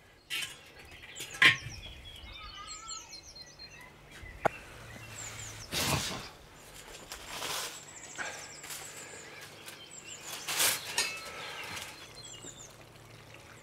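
Small birds chirping in short repeated calls, with a few knocks and scrapes as a metal peka pan and fire tools are handled over the embers of a wood-fired hearth; the loudest knock comes about a second and a half in.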